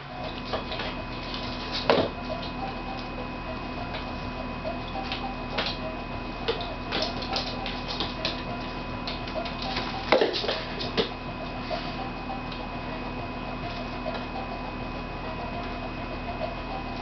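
Scattered taps and thumps of a cat pouncing and landing on a hardwood floor as it chases a feather wand toy, the loudest about two seconds in and again around ten seconds, over a steady hum.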